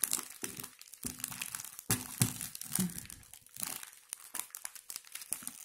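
Foil-lined plastic biscuit wrapper crinkling and tearing as it is pulled open by hand, in quick irregular crackles.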